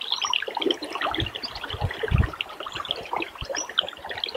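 River water running and babbling, with a few dull low thumps, the strongest a little past two seconds in.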